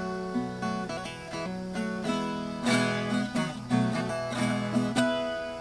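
Viola caipira plucking an instrumental passage in a sertanejo-style song, with sharp note attacks over a sustained bass line.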